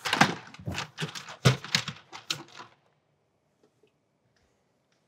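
Plastic retaining clips of a Tesla Model Y's scuttle panel tray snapping loose in a quick run of clicks and pops as the tray is pulled up along its edges, for about two and a half seconds.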